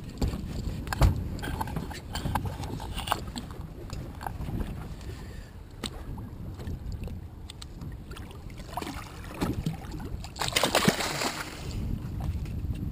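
Wind on the microphone and water lapping at the side of a small boat, with scattered short knocks and clicks. About ten seconds in, a splash of about a second as a hooked shark thrashes at the surface and comes free.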